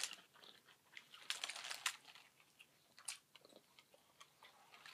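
Faint chewing of a mouthful of buffalo chicken sub: soft, wet mouth smacks and light crunches, bunched about a second into the chewing and a few more near three seconds.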